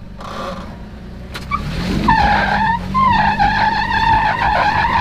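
A Toyota 4Runner's tire spins and squeals against rock while the engine pulls under load on a rocky trail obstacle. The high, wavering squeal starts about one and a half seconds in and keeps going.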